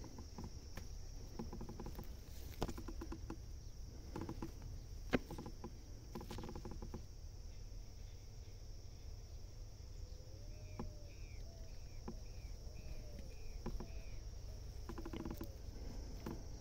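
Quiet outdoor ambience: a steady high insect drone, scattered short rattling clicks and a sharp tick about five seconds in, and a bird calling a run of about seven short rising-and-falling notes, roughly two a second, from about ten seconds in.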